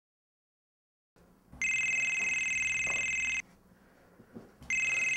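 Telephone ringing with an electronic trilling tone, twice: after about a second of dead silence, one ring of nearly two seconds, then a shorter second ring near the end.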